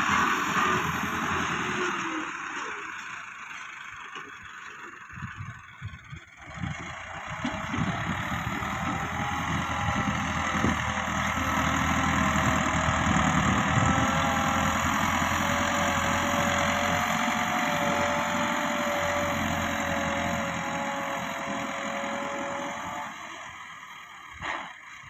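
Massey Ferguson 375 tractor's four-cylinder diesel engine running under load as it pushes soil with its front blade. The engine sound falls away a few seconds in, then comes back stronger and holds a steady note before easing off near the end.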